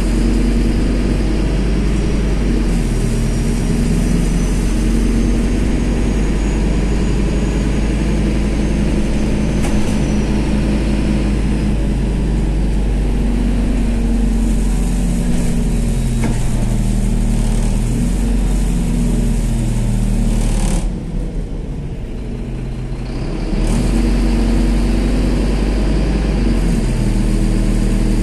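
MAZ 203 city bus under way, heard from inside: the engine runs with its pitch shifting as the bus pulls along, with a faint high whine that rises and falls early on. About three-quarters of the way through the engine sound drops away for a couple of seconds, then picks up again.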